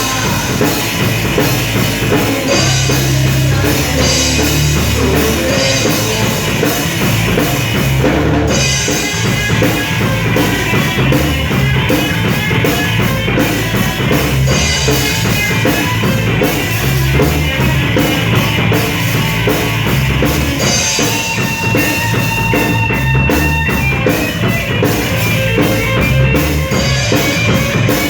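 Rock music with a full drum kit, bass and guitar, playing loud and steady.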